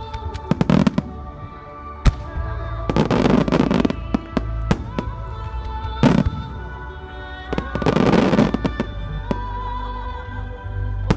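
Fireworks shells bursting over steady show music: sharp bangs at irregular intervals, and three spells of dense crackling from crackle-star shells.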